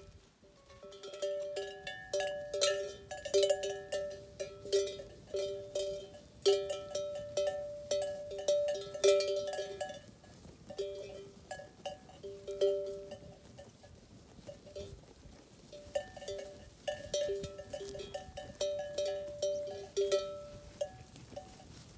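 Bells on grazing sheep clanking irregularly as the flock moves and feeds, the same few pitches ringing again and again. The clanging thins out in the middle and picks up again later.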